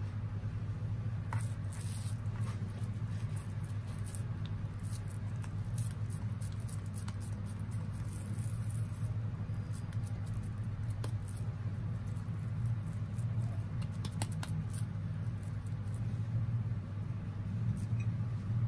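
Soft, irregular patting and squishing of chicken and lentil shami kabab mixture being pressed into patties between wet hands, over a steady low hum.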